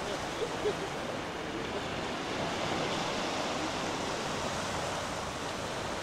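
Small waves of a calm sea washing steadily onto a sandy shore.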